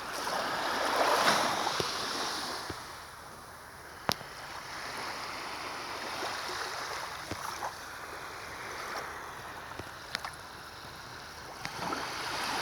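Sea waves washing in, with wind. The rushing noise swells about a second in and again near the end, and a few sharp clicks sound over it, the clearest about four seconds in.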